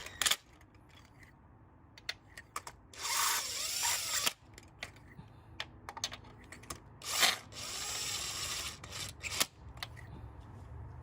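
Impact gun running in two bursts of a second or so each, about three seconds in and again about seven seconds in, its motor whine rising and falling as it drives a new spark plug into the Honda Accord four-cylinder's head. Light clicks of the socket and tools between the bursts.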